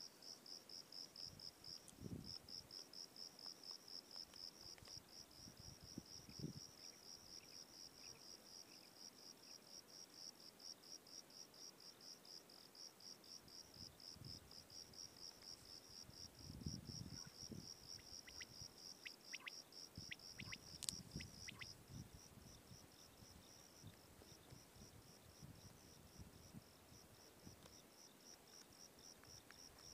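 Faint insect chirping, a steady high pulse repeated several times a second without a break. Low rustling bumps and a few light clicks come and go, most around two-thirds of the way in.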